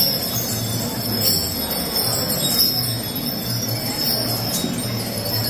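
Small bells jingling steadily over a busy crowd din.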